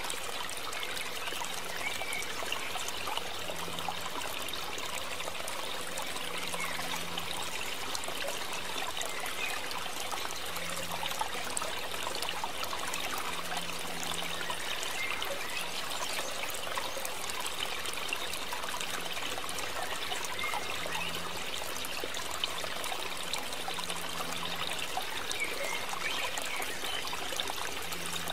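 Steady trickling, running-water noise that holds at one level without a break, with a faint low hum now and then.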